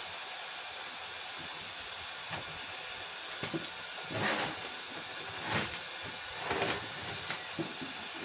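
Steady background hiss with about five short rustles and knocks of handling: equipment being moved about on the bench, the loudest of them about four and a half and six and a half seconds in.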